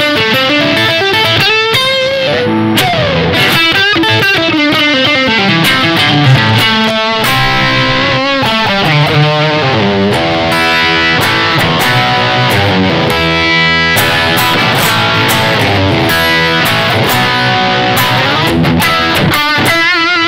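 Yamaha Pacifica 212 electric guitar played through a Yamaha THR10 amp on its heavy, modern distortion preset. It plays fast lead runs with string bends, vibrato and held, sustained notes.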